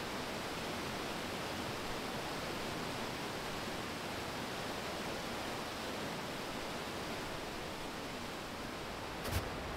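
Steady rushing of water, an even hiss with no change throughout, with a couple of light knocks near the end.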